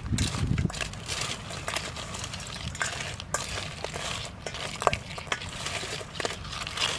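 Small crabs clicking and scraping against a stainless steel bowl and each other as they are handled and turned over by hand, an irregular run of sharp clicks and rattles.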